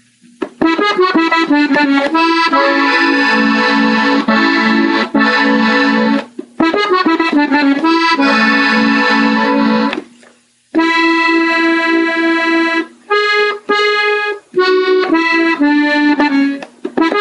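Gabbanelli button accordion playing the ending of a norteño song slowly, several reed notes sounding together, in phrases broken by short pauses about six and ten seconds in.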